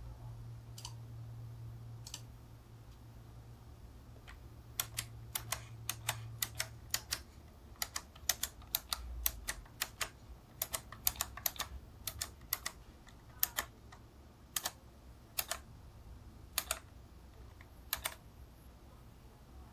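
Key presses on a Razer Tartarus v2 gaming keypad's mecha-membrane switches: sharp clicks in irregular runs, sparse at first and busiest through the middle.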